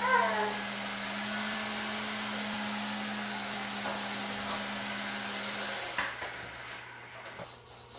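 Heli-Max Novus CX nano coaxial electric helicopter hovering: a steady whir from its small electric motors and counter-rotating main blades, with a brief falling tone right at the start. About six seconds in it touches down with a tap on a tabletop, and the motors wind down.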